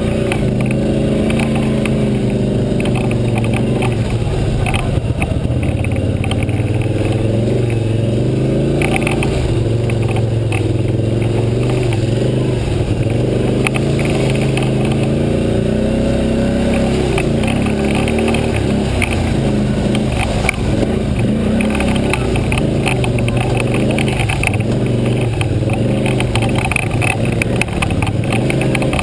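ATV engine running under load on a rough, rocky trail, its pitch rising and falling with the throttle, with frequent short rattles and clatter from the machine jolting over rocks.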